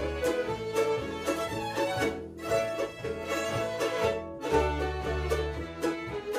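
Finnish pelimanni folk ensemble playing a dance tune on fiddles, with a double bass keeping a steady beat underneath.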